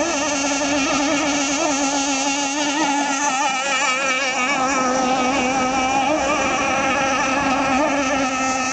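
Zenoah two-stroke gas engine of an RC hydroplane running flat out on the water: a steady high-pitched buzz whose pitch wobbles slightly.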